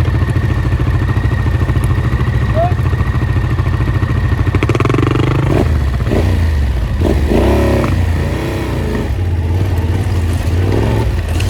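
Off-road vehicle engine running as it is driven along a dirt track; its pitch shifts up and down a few times around the middle as the throttle changes.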